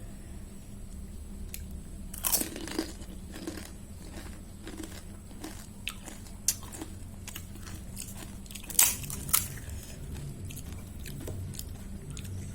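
Close-miked crunching and chewing of golgappa: crisp fried puri shells cracking under the bite, with loud crunches about two seconds in and again near nine seconds, then softer chewing.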